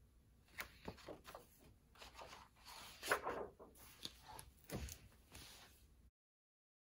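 Pages of a hardcover picture book rustling and flapping as it is leafed through to the end and shut, with a thump of the cover closing about five seconds in; the sound then cuts off to silence.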